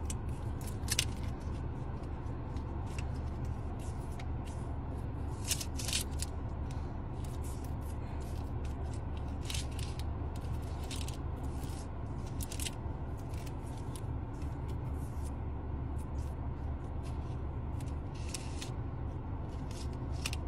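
Plastic bottle label being pulled and crinkled in short, scattered bursts of crackling, over a steady low rumble of a car cabin.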